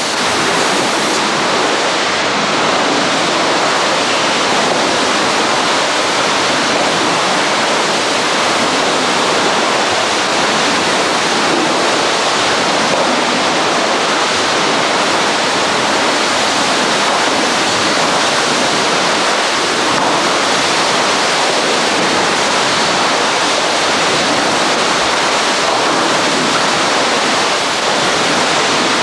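Water rushing steadily through an indoor kayak-canoe training tank, a continuous even noise that does not change.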